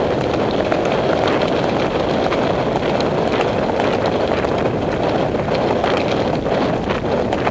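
Wind buffeting the microphone of a camera carried on a moving horse, a steady rushing noise, with faint irregular clicks of hooves on the dirt trail mixed in.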